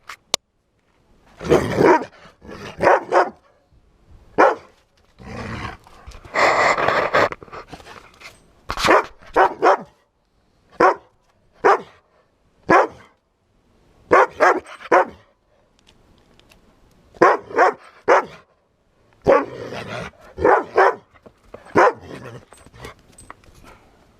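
A dog barking in play, about twenty short barks at irregular intervals, some single and some in quick pairs, with a longer rough burst about seven seconds in.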